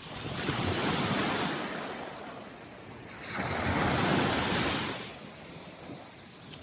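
Small Caribbean Sea waves washing in at the water's edge: two swells of surf, the second about three seconds after the first, each building and fading away.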